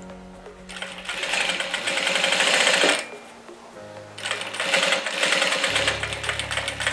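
Industrial Jack sewing machine stitching a zipper onto a fabric pouch in two runs, the first from about a second in to three seconds, the second starting again about a second later, with a short pause between.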